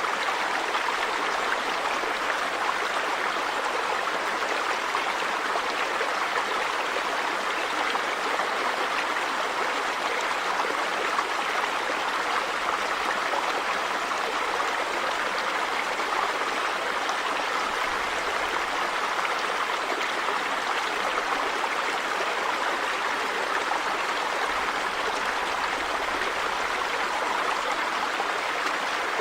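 River water running over rocks: a steady, even rush with no pauses.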